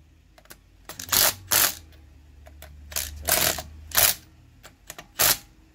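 Milwaukee Fuel brushless cordless impact wrench hammering on wheel lug nuts in about six short bursts, re-checking nuts that have already been tightened.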